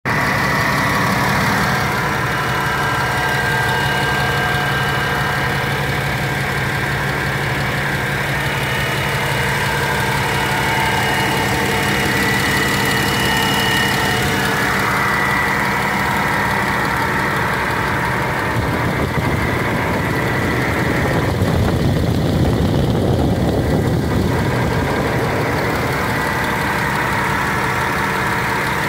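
Irisbus Ares bus's diesel engine idling steadily, heard close up at the open engine bay. It runs as an even hum, growing rougher and a little louder for several seconds past the middle.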